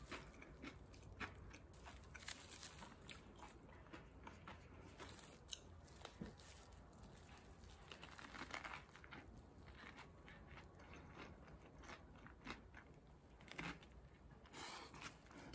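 Faint close-up eating sounds: biting into and chewing a soft tortilla wrap filled with lettuce and meat, with small crunches and mouth clicks scattered throughout.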